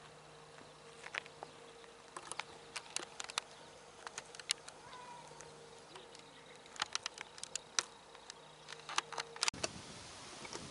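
Quiet background with scattered sharp ticks and clicks at irregular intervals over a faint steady hum; the hum cuts off suddenly near the end.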